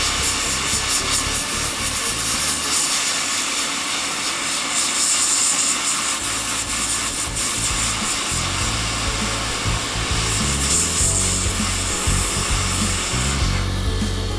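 JBC hot-air rework station blowing through its nozzle, a steady hiss that falls away near the end, over background music.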